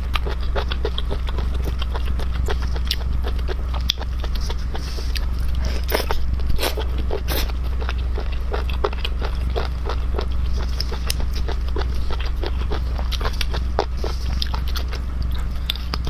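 Close-miked eating sounds: biting and chewing seafood, with a dense run of small wet crunches, clicks and smacks throughout. A steady low hum runs underneath.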